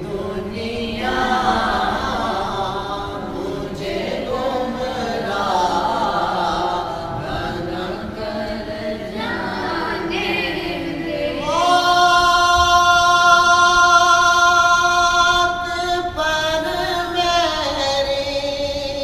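Male voices singing an Urdu naat unaccompanied, in long drawn-out phrases. About two-thirds of the way through the voice glides up to a high note and holds it for about four seconds before falling away.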